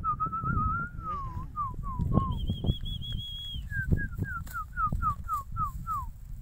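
A series of thin, high whistled notes: wavering and falling glides, a held high note, then about nine quick falling slurs at two or three a second. A low rumble runs underneath.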